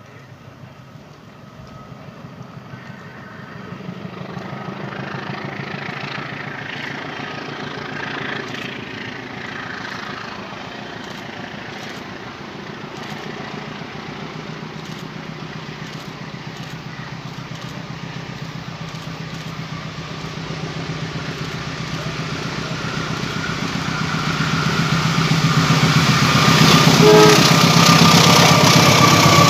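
CC201 diesel-electric locomotive hauling a passenger train as it approaches. Its engine note grows steadily louder and is loudest near the end as the locomotive draws close.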